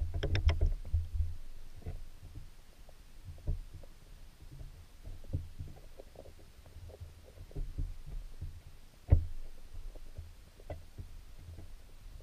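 Muffled low thumps and rumbles of a camera held underwater in a creek, beside a wire-mesh minnow trap. A cluster of thuds and clicks comes at the start and scattered knocks follow, the sharpest about nine seconds in.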